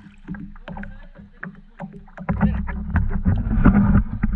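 Kayak being paddled: the paddle blades splash and drip into the water in irregular strokes, with small knocks against the plastic hull. The water noise swells and gets louder about two seconds in.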